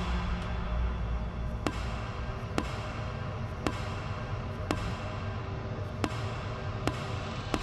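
Low, dark horror-score drone that thins out after a couple of seconds, with sharp knocks or ticks sounding roughly once a second.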